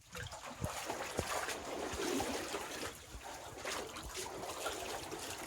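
Water lapping and trickling against a boat hull, with a few small knocks.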